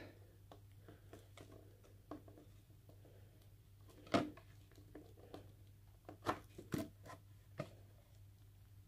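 Clear plastic deli cups and lids and metal tweezers being handled: scattered light clicks and taps, with a sharper tap about four seconds in and a few more near the end.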